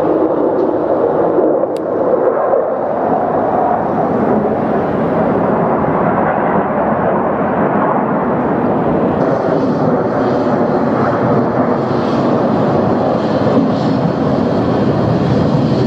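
A formation of single-engine F-16 Fighting Falcon jets passing low overhead, a loud, steady jet-engine noise.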